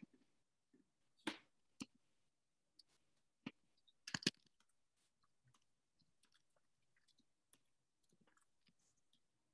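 Near silence with a few short, faint clicks and small handling noises scattered through it, the sharpest near the start, about a second in, and about four seconds in.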